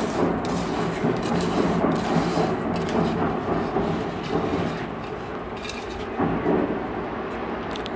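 Hands mixing raw anchovies with chopped onion, green mango, chillies and curry leaves in an aluminium bowl: a dense, wet rustling and squishing with occasional light clicks against the bowl, easing a little after about five seconds.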